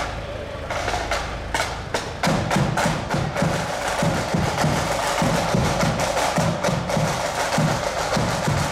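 Marching band side drums: a few sharp separate taps, then about two seconds in the drums strike up a steady marching beat with a bass drum pulse underneath.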